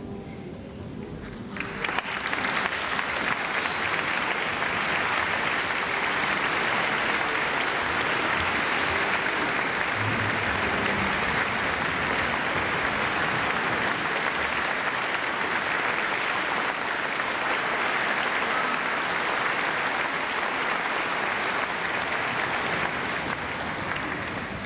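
Concert audience applauding: the clapping swells up about two seconds in, holds steady, and eases off near the end.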